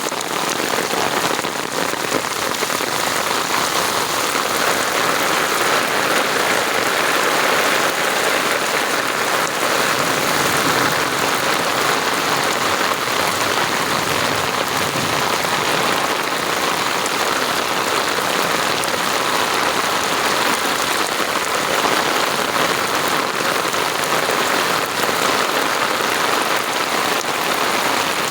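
Steady heavy rain falling and pattering on surfaces, an even dense hiss of drops.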